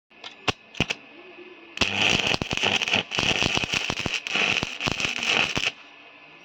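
Electric arc welder laying a tack weld on a broken tractor plate: two quick snaps as the electrode is struck, then the arc crackles and sizzles steadily for about four seconds before cutting off.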